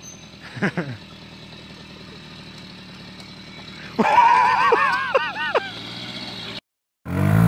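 Small moped engine running faintly, then about four seconds in a sudden loud crash as the moped tips over, followed by a string of loud cries from onlookers. Near the end the sound cuts out briefly and a louder engine starts.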